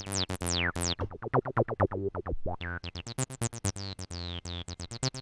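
Korg Electribe EMX synth playing a sequenced acid bassline that emulates a Roland TB-303: a fast run of short notes, each with a resonant filter sweep falling in pitch, with a short gap about halfway through.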